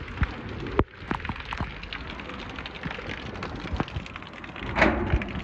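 Heavy rain pouring steadily, with drops striking the rain-soaked phone as sharp irregular taps and clicks; a brief louder rush of noise comes near the end.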